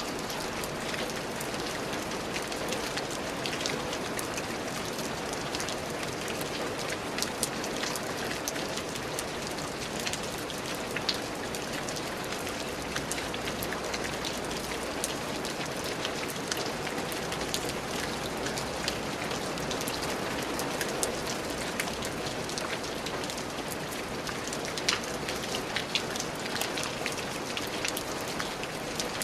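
Steady rain falling on a surface, an even hiss with many scattered individual drop ticks and splats.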